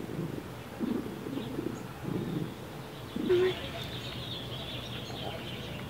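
A cat breathing with pig-like snorting and snoring sounds while awake, a rough snort about once a second, with a short higher squeak a little after three seconds in. The snorting comes from the cat's breathing problems.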